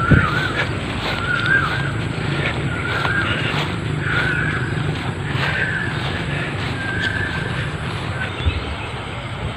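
Steady rumble of road traffic, with a bird's short warbling call repeated every second or so.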